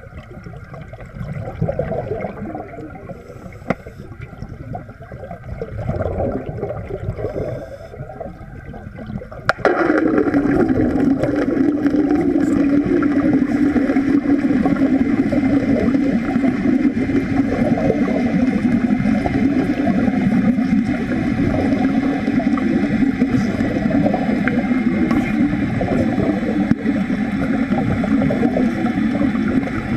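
Underwater wet stick welding: at first only water gurgling and bubbling, then about nine and a half seconds in the arc is struck and a loud, steady buzz with hissing and bubbling carries on without a break.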